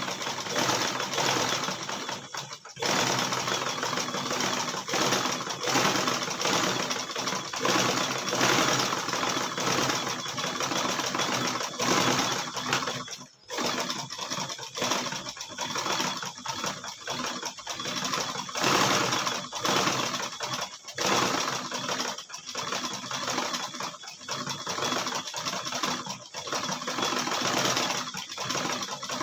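Black sewing machine running a zigzag stitch along the torn hem of a shirt, in long continuous runs that stop briefly twice, a few seconds in and about halfway through.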